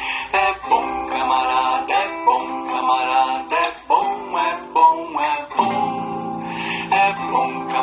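Music: a plucked-string instrument playing a lively tune in a steady rhythm.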